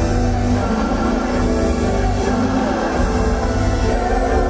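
Loud fireworks-show soundtrack music with held notes and deep bass.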